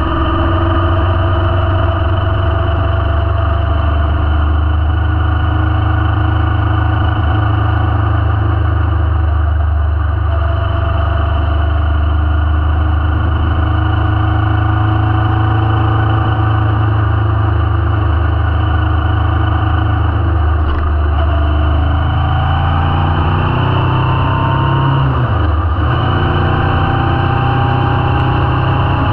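Kawasaki Vulcan S parallel-twin engine running under way, heard from the rider's position, steady for most of the time. Near the end the engine note drops briefly and then climbs again.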